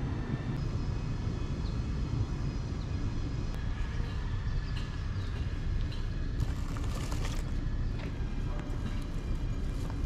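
Steady low outdoor rumble, with faint thin high tones drifting over it.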